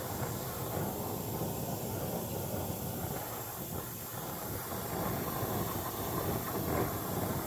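Soldering torch flame hissing steadily while it heats brass for silver soldering.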